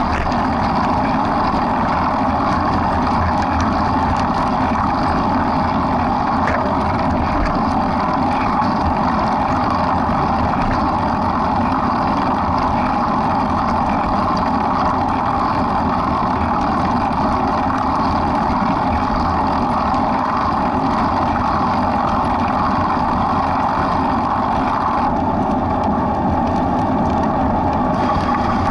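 Steady rushing wind noise with a low rumble on the microphone of a camera carried by a running runner.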